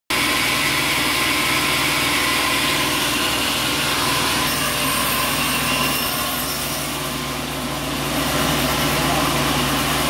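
Band sawmill's engine running steadily with no log in the cut, a constant machine hum with a slight dip in level around three-quarters of the way through.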